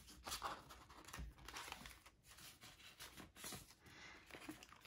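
Faint rustling and crinkling of paper banknotes and a clear plastic cash envelope being handled, with a few soft scattered ticks.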